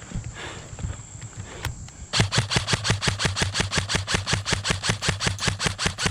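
Airsoft electric rifle (M4 CQB) firing a long full-auto burst starting about two seconds in: an even string of sharp shots, about eight a second, over the steady hum of the gun's motor and gearbox.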